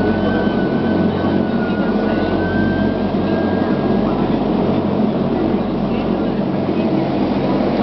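Cabin noise of a LET L-410 UVP-E's turboprop engines and propellers running steadily, heard from a window seat beside the propeller as the aircraft rolls along the runway. A faint high whine rises slightly and fades out about four seconds in.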